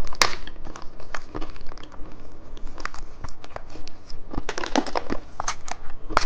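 Plastic candy packaging crinkling and crackling in short, irregular bursts as it is handled and opened.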